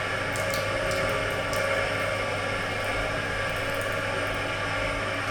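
Steady machine hum made of several constant tones over a hiss, with a few faint light clicks about half a second to a second and a half in.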